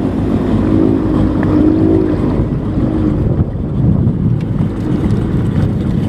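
Jet ski engine running on the water, with wind rushing over the microphone. A steady engine tone is heard for the first couple of seconds, then it blends into the rumble and wind noise.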